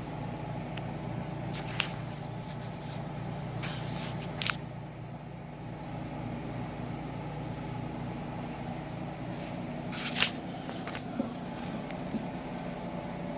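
Air conditioner running with a steady hum, with a few light clicks and knocks over it: around two seconds in, twice around four seconds, and again near ten seconds.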